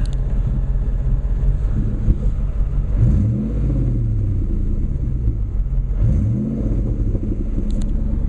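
Supercharged 4.6-litre DOHC V8 of a 2003 Ford Mustang SVT Cobra idling, blipped twice: a quick rev about three seconds in and another about six seconds in, each rising and then falling back to idle.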